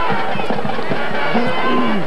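Band music with a regular drum beat, over the noise of a football crowd.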